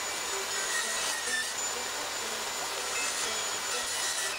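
Handheld power saw running steadily as it cuts through a sheet of board, a loud rushing noise with a thin high whine on top; it stops right at the end.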